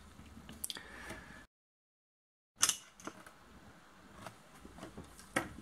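Faint handling noises and a few light clicks as a small speaker is set down on a wooden table, broken by about a second of dead silence; a sharp click follows the silence, then quiet room tone with a couple of small ticks.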